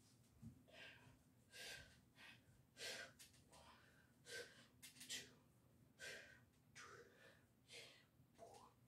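Faint heavy breathing of someone winded after a set of dumbbell bicep curls: short, hard breaths about once a second.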